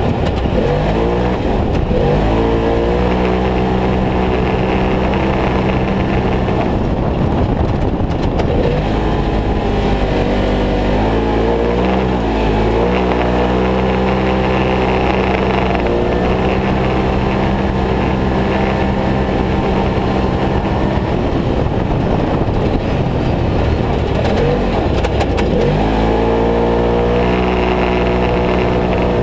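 Polaris RZR XP Turbo's turbocharged twin-cylinder engine running hard at racing pace, heard from inside the cab. Its note holds a steady pitch for long stretches, then dips and climbs back up three times: about a second in, near the middle, and a few seconds before the end.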